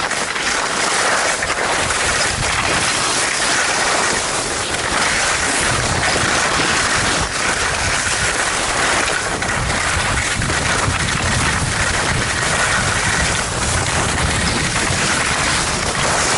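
Skis hissing over snow on a downhill run, with wind rushing over the camera's microphone: a steady rushing noise.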